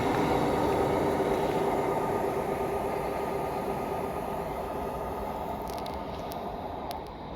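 A train running past on the line and moving away, its rumble fading steadily.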